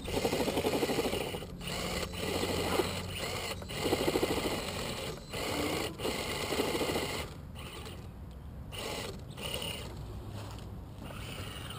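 Scale RC crawler's Torquemaster 27T brushed electric motor and geared drivetrain whirring in about four short throttle bursts as it climbs over a log. The bursts come in the first seven seconds, and the rest is quieter.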